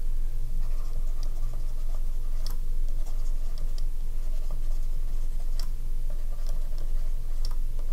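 Stylus tapping and scratching on a tablet screen during handwriting, with short, sharp clicks scattered irregularly, over a steady low hum.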